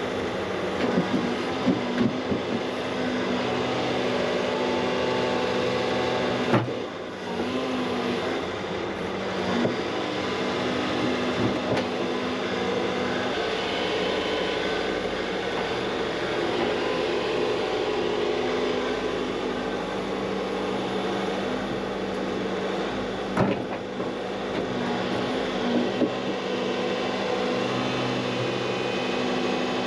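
Excavator's diesel engine and hydraulics running steadily under load while digging in rocky ground, with two sharp knocks, about seven and twenty-three seconds in.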